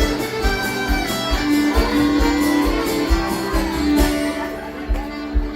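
A string band playing an instrumental passage without vocals: guitar with fiddle over a steady low beat.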